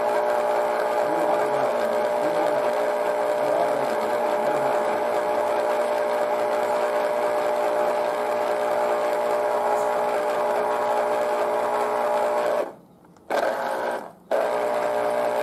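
Electric citrus juicer's motor running steadily, spinning the reamer cone under pressed orange halves, with a hum of several tones. Near the end it cuts out twice for a moment as the pressure comes off the cone, then starts again when an orange half is pressed back down.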